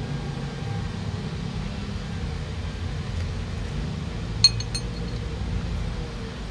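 A low, steady background rumble, and about four and a half seconds in a quick run of three or four sharp, ringing clinks of a utensil against dishware at the table.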